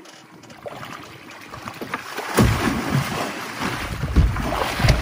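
A hooked bull shark thrashing at the surface beside the boat: quiet at first, then from about halfway through water splashing and churning, with several heavy slaps.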